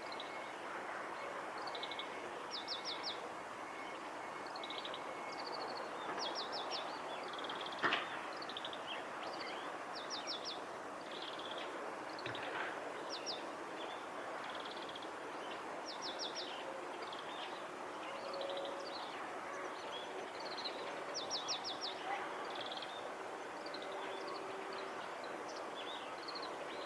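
Oriental greenfinch singing: short twittering notes and quick trills repeated over and over, over a steady background hiss. A single sharp click about eight seconds in.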